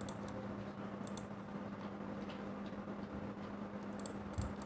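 A few faint computer mouse clicks, about a second apart, as a paint fill is applied, over a steady low hum. There is a soft thump near the end.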